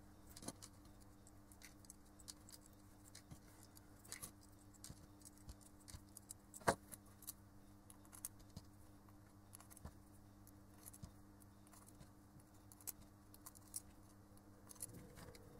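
Faint, scattered small clicks and light metallic ticks of resistor wire leads being bent and pushed into the holes of a printed circuit board, with one louder click about seven seconds in, over a low steady hum.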